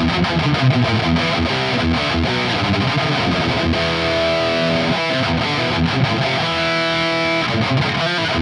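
Distorted electric guitar played through a Laney GH100TI all-tube amp head, driven by a Friedman Buxom Boost overdrive in front: a fast chugging riff broken by a couple of held chords. It has a strong midrange with a top end the player finds grating.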